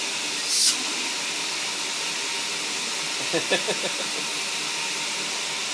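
Household vacuum cleaner running with a steady, even whoosh. There is a short sharper hiss about half a second in, and a brief voice sound a little after the middle.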